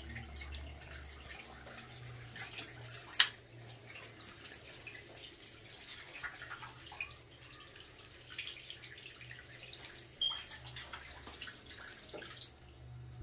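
Water running from a basin tap into a small ceramic sink, splashing and dripping as soapy hands are rubbed and rinsed under it. The water stops near the end as the tap is turned off. A single sharp click about three seconds in is the loudest sound.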